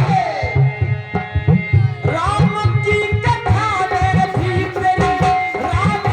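Devotional folk music: tabla-style hand-drum strokes keep a steady beat under a gliding melodic line, with no words sung.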